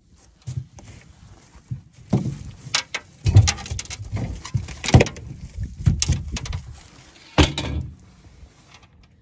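Irregular knocks, clatter and rustling from handling a freshly netted trout and the landing net, with louder thumps about three and five seconds in and again a little after seven seconds.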